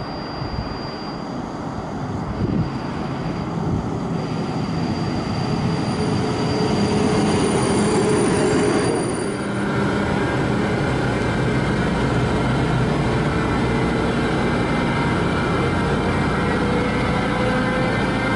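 Electric train running past at close range, its wheel and running noise building over the first eight seconds. After that an electric locomotive moves slowly past, its traction motors giving a steady whine that slowly rises in pitch as it gathers speed.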